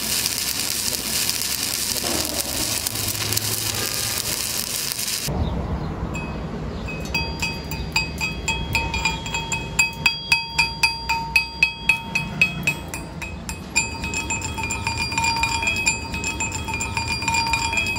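Stick-welding arc crackling steadily on a steel pipe joint, cutting off about five seconds in. Then a chipping hammer strikes the weld bead to knock off slag, several blows a second at its fastest, and the pipe rings with clear metallic tones.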